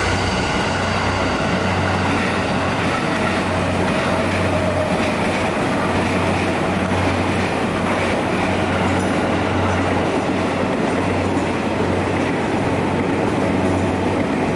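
A train passing on the rails, a steady rumble with wheel-on-rail clatter. A faint high whine comes and goes over it.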